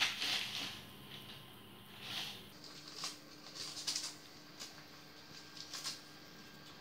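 A dog gnawing and tearing at paper: soft, irregular crinkling and rustling scrunches.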